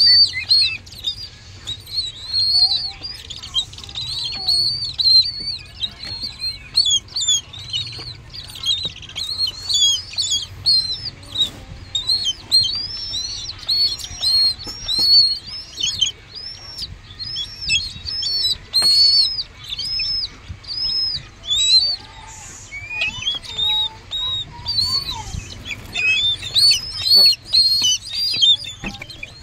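Downy raptor chick begging for food while being hand-fed: a rapid series of high arched chirps, several a second, with a couple of short breaks.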